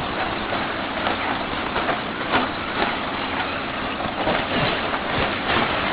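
Radio-controlled short course trucks running on a dirt track: a steady mix of motor and tyre noise, with scattered short knocks.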